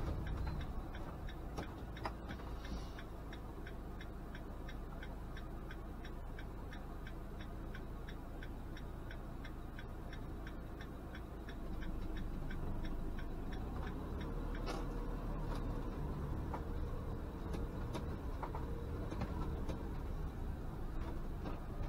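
Turn-signal indicator ticking in a motorhome cab, a fast regular click of about two to three ticks a second, over the low running of the engine and road noise.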